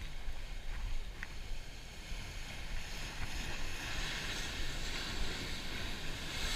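Wind buffeting the microphone over the hiss of surf breaking and washing against rocks below; the hiss of the waves swells about three and a half seconds in.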